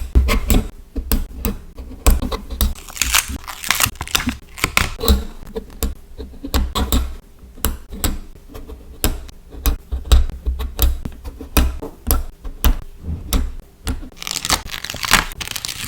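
Scenery stickers being peeled from their backing sheets and pressed down by hand: irregular small clicks, taps and crackly peeling, with a louder stretch of crackling near the end.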